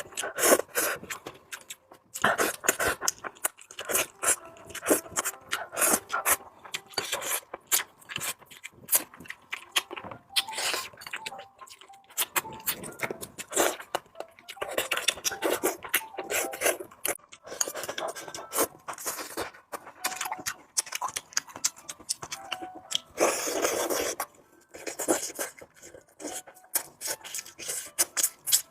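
Close-miked eating sounds of a person chewing a mouthful of spicy pork and rice: irregular wet smacks and clicks, with a denser stretch a little before the end.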